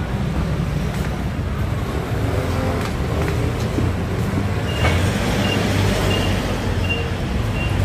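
City street traffic with a steady low rumble of passing vehicles. From about five seconds in, a short high electronic beep repeats about every 0.7 s.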